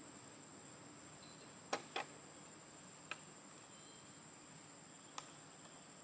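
Faint, steady high-pitched drone of insects in the background, with a few short sharp clicks: two close together about two seconds in, and single ones about three and five seconds in.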